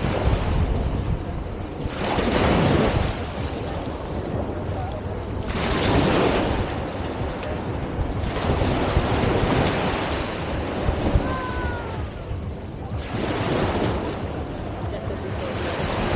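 Sea surf breaking and washing up the beach, swelling in surges every few seconds, with wind buffeting the microphone.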